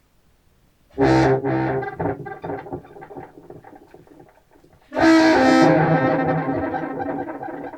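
Contrabass clarinet played through a Walrus Fable granular delay and heard over studio speakers: a short note about a second in that breaks into stuttering repeats, then a longer, brighter note about five seconds in that trails off in echoing repeats.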